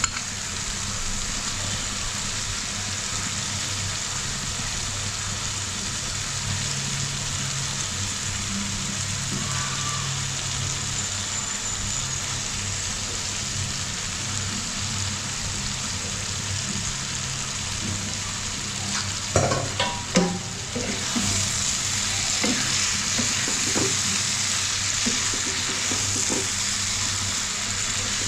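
Beef liver pieces frying and sizzling in spiced masala in a pan while being stirred. A few sharp knocks of the utensil against the pan come about two-thirds of the way through, after which the sizzling is louder.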